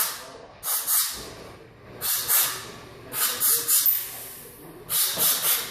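Compressed-air blow gun giving a series of short blasts, about five in all, roughly one a second, each a quick double or triple puff of hiss. The air is blowing oil and dirt out of the spark plug wells before the plugs come out.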